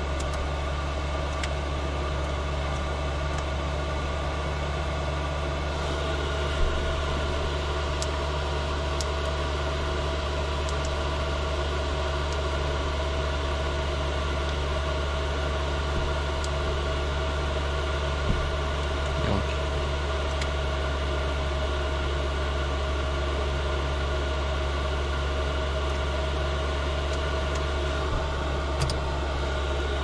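Diesel air heater running in a tractor cab: a steady blower hum and hiss with a few faint clicks. The hiss grows a little brighter about six seconds in.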